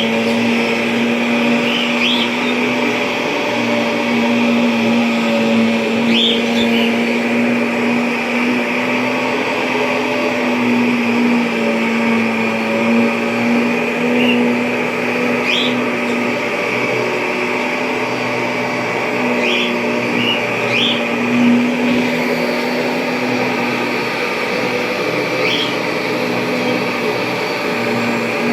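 1997 Kirby G5 upright vacuum cleaner running steadily: a constant motor-and-fan hum under a whirring rush of air, with short, high chirps here and there.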